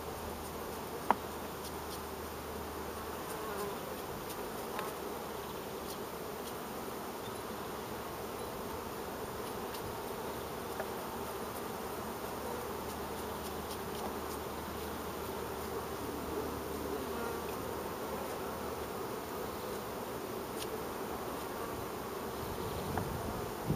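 Carniolan honey bees buzzing steadily in a dense hum around an opened hive. A single sharp click sounds about a second in.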